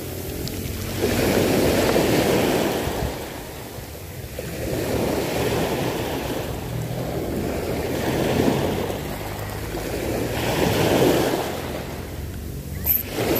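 Small waves breaking and washing up the shore, swelling and falling every two to three seconds, with a couple of sharp clicks near the end.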